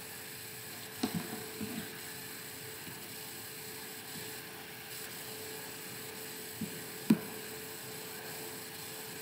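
Steady faint electrical hum and hiss in the recording, with a few faint short sounds about a second in and again near seven seconds.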